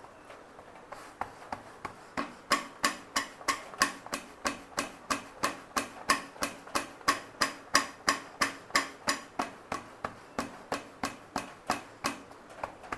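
Bhakri dough being patted flat by hand on a flour-dusted stainless steel plate: a steady run of soft slaps, about three a second, starting faintly about a second in and growing louder a second or so later.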